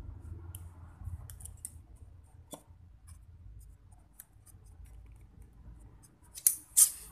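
Light clicks and scrapes from a small metal tab, a replacement clicker part for a fishing reel, being handled and cut. Two short, louder harsh cuts come near the end.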